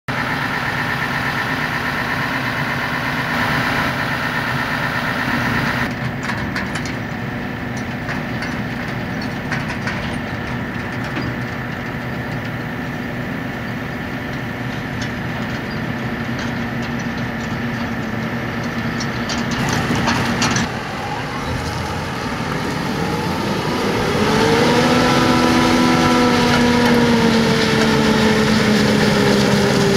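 Diesel farm machinery running through several shots of a maize silage harvest: a Claas Jaguar 870 forage harvester and a John Deere tractor hauling a silage trailer. About two-thirds through, an engine speeds up with a rising whine and holds at the higher pitch, louder, as the harvester fills the trailer running alongside.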